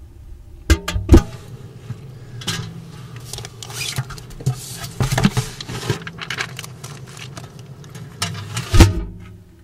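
A curbside mailbox door clunks open, mail rustles and scrapes as a hand rummages inside, and the door bangs shut near the end, over a steady low hum.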